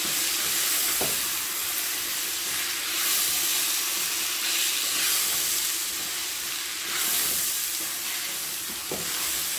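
Rice, tomato and meat frying in oil in a steel pot, sizzling steadily while a wooden spoon stirs through it.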